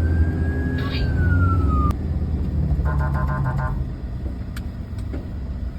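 Fire truck siren wailing over a running engine: one slow rise and fall in pitch, cut off about two seconds in. A short burst of rapid beeping follows, then engine rumble with a few clicks.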